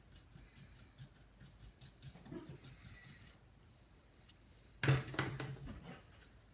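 Toothbrush scrubbing a circuit board wet with isopropyl alcohol: faint, quick scratchy brushing strokes, about four or five a second, that stop about halfway through.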